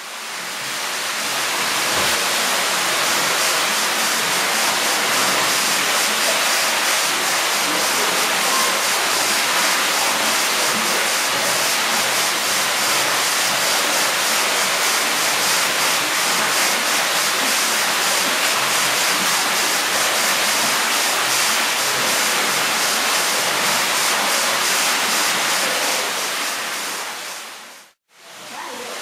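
Steady, loud rushing noise, even from low to high pitches, like falling water or a blower. It fades in over the first couple of seconds and fades out about a second before the end.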